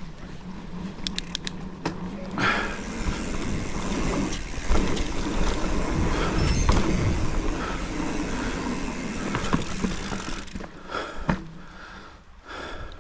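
Hardtail mountain bike rolling fast down a dirt trail: a steady rush of tyre and wind noise with rattles and knocks, loudest from about two to ten seconds in, with a few sharp clicks about a second in.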